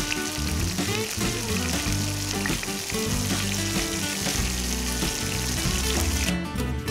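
Prawns and masala sizzling steadily in hot oil in a frying pan, stopping about six seconds in.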